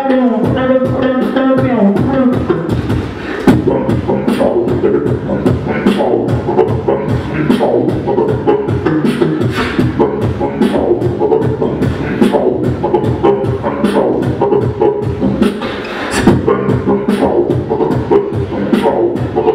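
Live beatboxing: a steady, quick beat of vocal kick, snare and hi-hat sounds. For about the first two seconds it runs under a hummed, pitched bass line.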